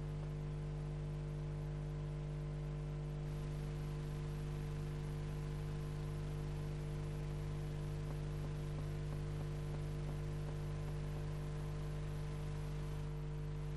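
Steady electrical hum with an even hiss: the open radio communications line between transmissions.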